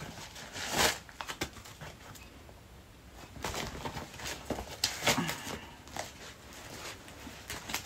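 Handling noise from an Adidas Yeezy Boost 350 sneaker as it is held up and pulled onto a foot: scattered rustles and a few soft knocks and clicks, the loudest about a second in and a cluster of them around the middle.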